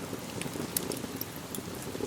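Steady rain together with a wood fire crackling in a fireplace: a low, even rush with scattered sharp pops and crackles.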